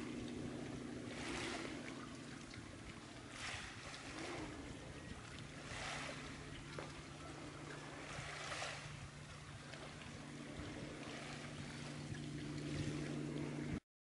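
Small waves washing onto a gravel beach about every two to three seconds, over a steady low hum that shifts in pitch partway through.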